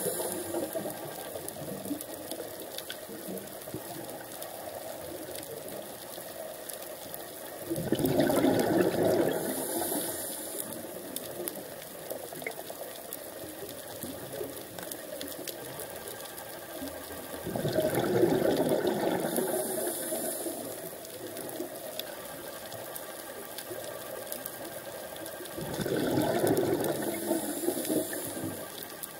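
A scuba diver's regulator releasing exhaled bubbles underwater, a bubbling rush three times, about every nine seconds. Between the breaths there is a steady faint hiss with fine crackling.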